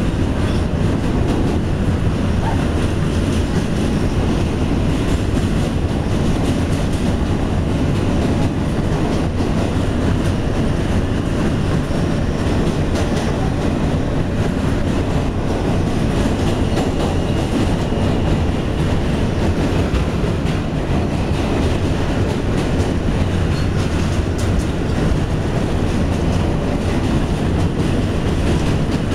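New York subway train running across the steel Manhattan Bridge, heard from aboard: a steady, even rumble of wheels on the rails that does not let up.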